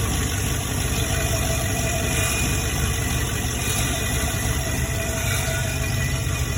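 Boosted engine with a FiTech fabricated sheet-metal intake manifold idling steadily, a few faint steady tones riding above the low engine note. This is the intake noise the owner calls weird.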